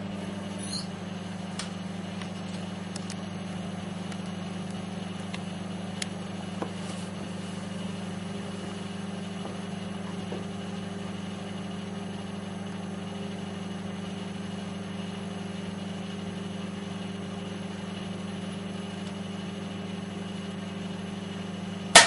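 Daewoo microwave oven running: a steady electrical hum from its transformer and magnetron, with a few faint ticks in the first several seconds.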